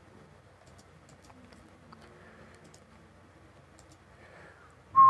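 Faint, scattered clicks of a computer mouse and keyboard. Near the end, a sudden loud short whistle at a steady pitch begins.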